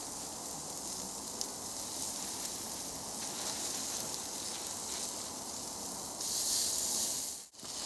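Meat sizzling on a barbecue grill, a steady hiss. About six seconds in it turns into a louder, higher hiss for about a second before cutting off abruptly.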